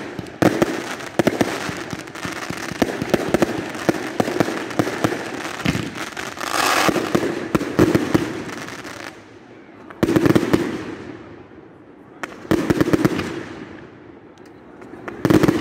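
Aerial fireworks going off: a dense barrage of bangs and crackling shell bursts for the first nine seconds or so, then three separate bursts about ten, thirteen and fifteen seconds in, each followed by a fading crackle.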